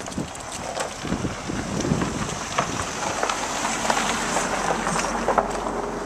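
Outdoor rushing noise, like wind buffeting the microphone, that swells through the middle, with scattered crunching clicks of footsteps on gravel.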